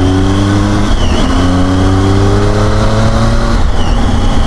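Triumph Tiger 800's three-cylinder engine roaring under hard acceleration. The revs climb, drop with an upshift about a second in, then climb again and drop with another shift near the end.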